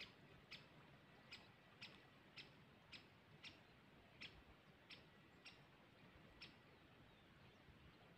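Faint sharp ticking clicks, about two a second, that stop about six and a half seconds in.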